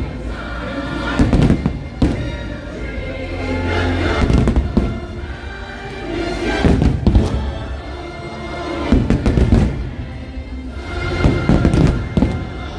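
Aerial fireworks shells bursting in volleys of bangs every two to three seconds, over a fireworks show's music soundtrack.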